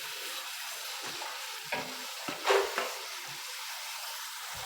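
Sliced onions sizzling as they fry in hot red palm oil in a pot, with a few scrapes of a spoon stirring them.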